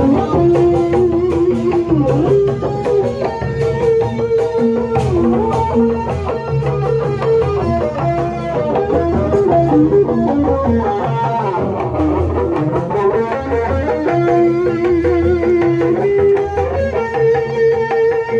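Sundanese kuda renggong music playing without a break: an instrumental passage with a plucked-string melody over drums.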